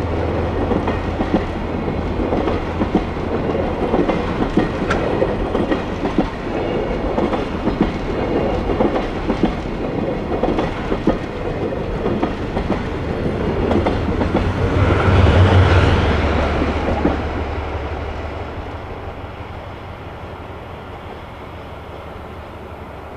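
A diesel train running past, its wheels clicking steadily over the rail joints. It is loudest about fifteen seconds in, with a low engine note, and then fades away as it recedes.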